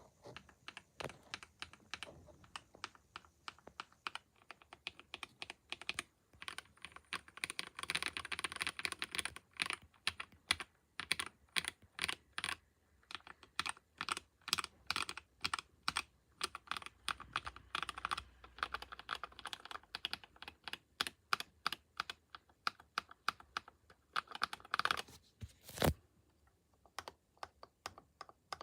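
Typing on a custom mechanical keyboard: a stream of sharp key clicks in quick runs with short pauses between them. Near the end, one louder, deeper stroke stands out.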